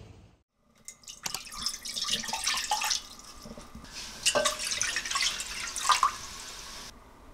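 Water poured into a white ceramic nabe pot, splashing and gurgling as it fills, in two spells: one starting about a second in, the other about four seconds in.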